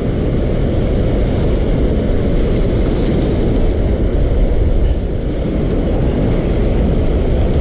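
Churning tailwater below a hydroelectric dam, a steady low roar of rushing water.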